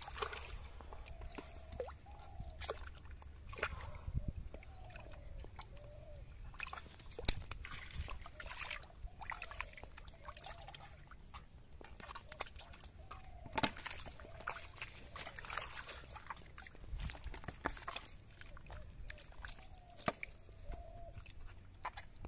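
Hands sloshing and groping through muddy water in a small hole, with repeated sharp splashes and wet squelches, and a blade scraping through the wet mud. Short wavering animal calls recur faintly in the background.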